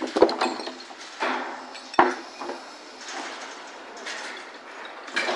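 Sharp clanks and knocks from squared timber beams being loaded onto a truck with a gantry crane, amid lighter clattering. The two loudest come about a quarter of a second and two seconds in, and another near the end.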